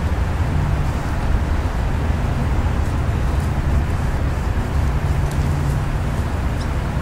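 Steady low rumble with a faint hum that swells twice, and a few faint crinkles of wax paper being folded by hand around an air layer on a vine.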